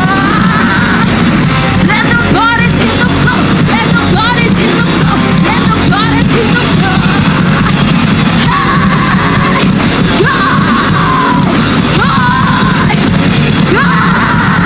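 Live rock band playing loud, heavy music, with high gliding notes repeating over a dense, steady low end.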